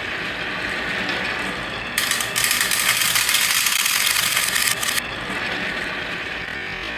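Marbles rolling and clattering along a wooden marble run, a dense rattle that grows much louder for about three seconds from around two seconds in, then drops back abruptly.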